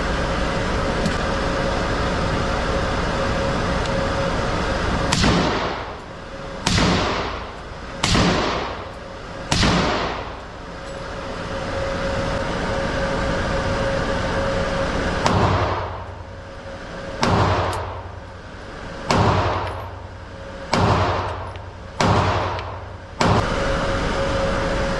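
Gunshots fired one at a time, each with a ringing tail: four shots about a second and a half apart, a pause of several seconds, then six more at a similar pace. A steady background hum runs beneath them.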